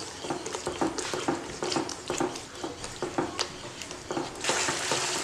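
Wooden spatula stirring and scraping a thick raw onion-chilli masala paste around a nonstick kadai in irregular strokes, the paste sizzling in the hot oil. The sizzle grows louder near the end. The paste is at the start of its roasting, still raw and cooking until it releases its oil.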